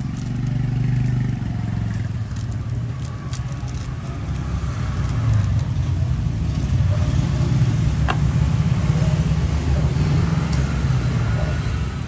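Low rumble of a motor vehicle's engine running, growing a little louder after about five seconds, with one sharp click about eight seconds in.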